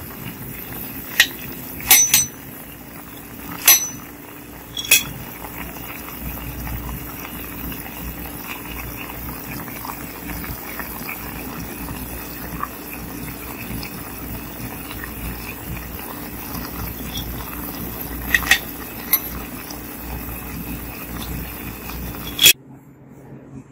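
Braised pork and corn boiling in a clay pot, a steady bubbling. A metal slotted spoon clinks sharply against the pot four times in the first five seconds, and there are two more clinks near the end. The sound cuts off suddenly just before the end.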